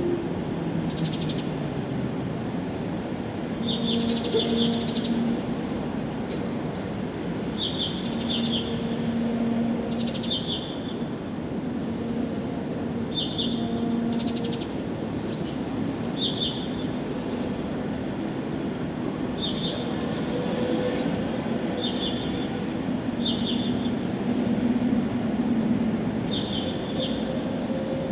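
Songbirds chirping in short, high, repeated phrases, roughly one every couple of seconds, over a steady low background rumble of outdoor noise.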